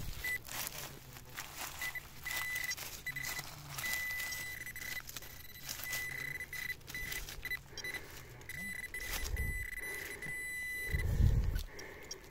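A metal detector's target tone, in short beeps at first, then a steady high beep held for several seconds that cuts off near the end. It signals buried metal in the dig hole. Under it are scraping clicks of digging in soil and a couple of dull thumps near the end.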